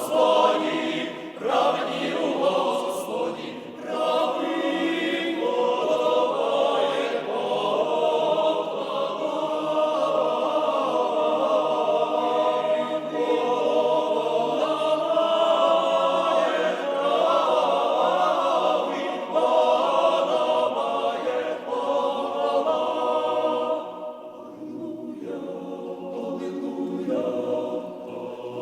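Choir singing Byzantine-rite liturgical chant in a Ukrainian Greek Catholic service, sustained and full, turning softer about four seconds before the end.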